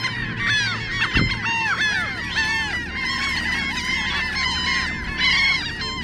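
A large laughing gull breeding colony calling all at once: a dense, unbroken chorus of many overlapping short, arched calls. A brief low thump comes about a second in.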